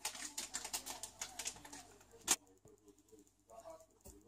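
Coriander seeds shaken from a spice jar into a ceramic bowl, a quick patter of small ticks that stops about two seconds in. A single sharp click follows.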